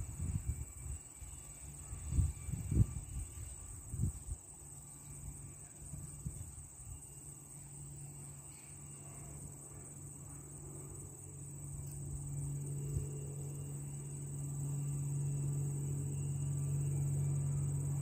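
A steady, high insect chorus of crickets, with wind buffeting the microphone in low rumbling gusts during the first few seconds. From about ten seconds in, a low steady hum grows louder underneath.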